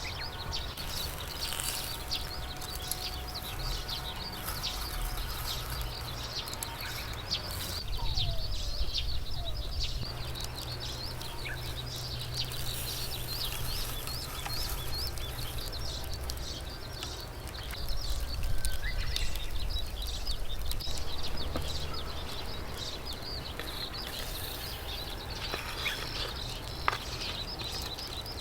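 Outdoor ambience: birds chirping and calling over a steady low rumble, a little louder twice along the way.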